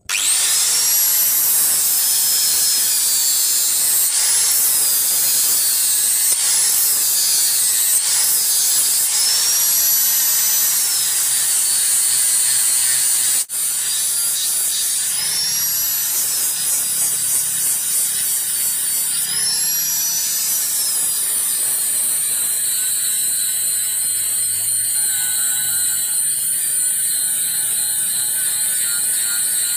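Electric angle grinder with an abrasive disc running and grinding a steel machete blade. Its high whine sags in pitch and recovers every couple of seconds as the disc is pressed onto the blade, then holds steadier near the end.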